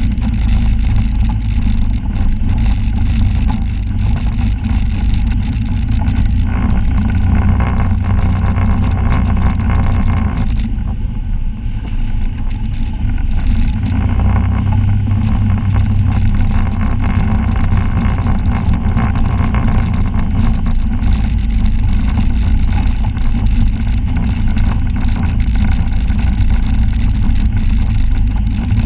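Side-by-side UTV engine running as it drives a rough dirt trail, with frequent knocks and rattles from the vehicle. The engine eases off between about ten and fourteen seconds in, then picks up again.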